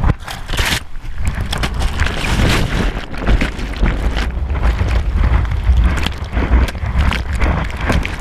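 Sea water rushing and splashing over a GoPro at bodyboard level. There is a heavy continuous low rumble of water and wind buffeting on the camera housing, with many quick splash crackles on top.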